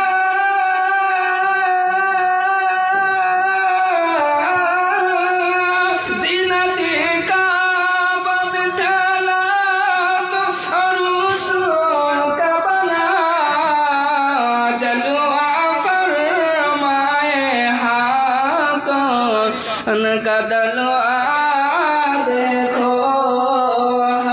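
A man singing an Urdu naat, a devotional Islamic song, in a melismatic style. He holds one long note for the first few seconds, then moves through ornamented, winding melodic runs.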